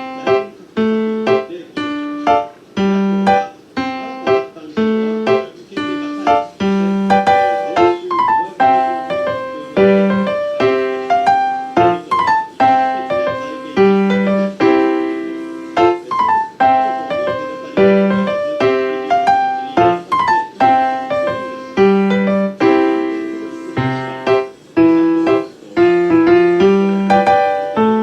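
Background piano music: a steady melody with descending runs over a regular bass line.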